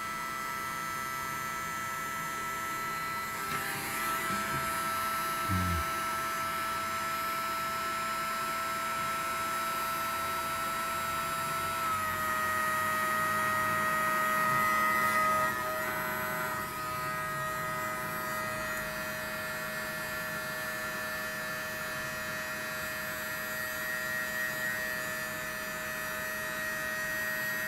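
Electric heat gun running with a steady whine from its fan motor, shrinking heat-shrink tubing over soldered wire joints. The whine drops slightly in pitch about twelve seconds in.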